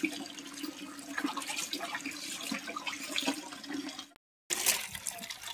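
Tap water running into a steel basin, with splashing as a mug scoops water and pours it over a small monkey being bathed. The sound cuts out briefly about four seconds in.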